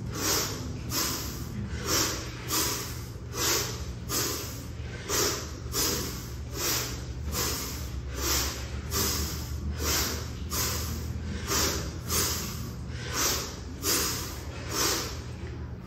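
A man's forceful breathing while swinging a kettlebell: short, sharp breaths in and out in time with the swings, about two a second.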